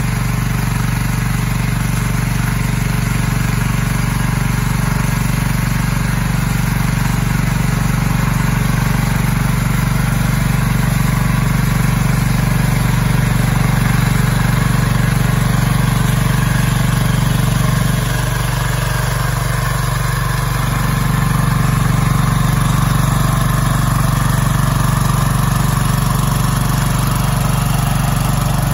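Agrale 4118 compact diesel tractor engine running steadily under load, a loud, even low drone, while it drives a rear rotary tiller working the soil.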